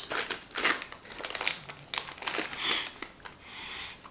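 Crinkling of a plastic potato chip bag being opened and handled, in irregular crackly bursts.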